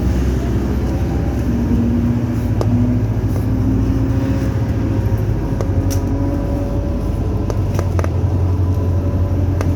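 A bus heard from inside, its engine drone steady under a thin whine that slowly climbs in pitch as it accelerates, the weird noise under acceleration that this bus makes. A few sharp rattles and clicks sound along the way.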